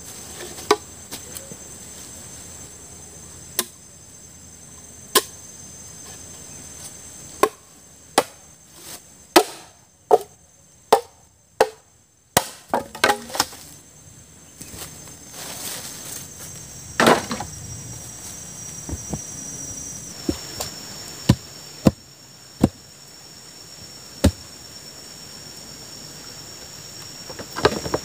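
Wood being chopped with a blade: single sharp blows at irregular intervals, with a quicker run of several blows about eight to thirteen seconds in.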